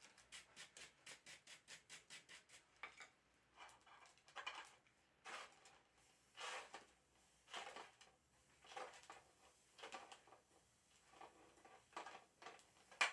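Faint hammer blows on hot steel at the anvil during forge welding: first a quick run of light taps, about seven a second, then slower single blows about once a second, with one sharper knock near the end.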